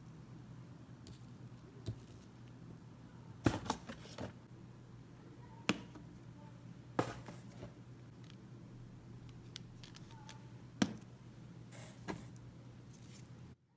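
Scattered sharp clicks and knocks, about eight of them at uneven intervals, over a steady low hum; the sound cuts off abruptly near the end.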